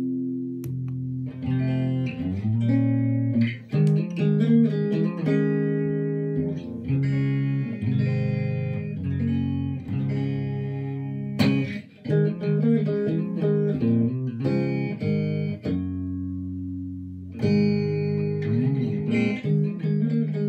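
Electric guitar played through the repaired George Dennis GD55 overdrive wah-wah pedal and a small valve amp, with picked notes and chords and a few glides in pitch. It is a playing test showing the pedal working again after a burned-out resistor was replaced. There is a sharp click about halfway through.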